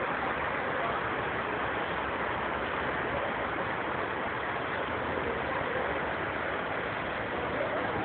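Steady rushing background noise, even throughout, with no bird song standing out.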